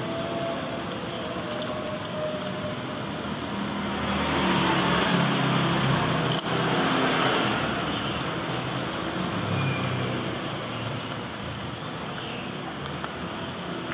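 Road traffic going past, a steady noise of engines and tyres that swells about a third of the way in as a vehicle passes close, then eases off.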